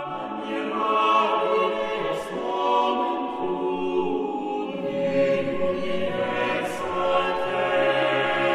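A choir singing slow, sustained music that swells in at the start.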